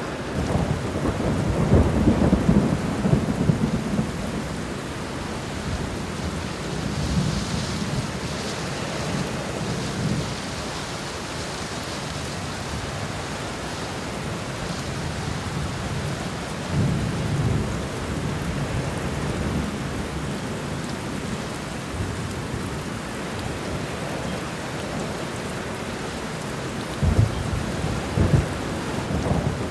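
Steady rain falling through a thunderstorm, with thunder rumbling low several times. The strongest rolls come in the first few seconds and again near the end.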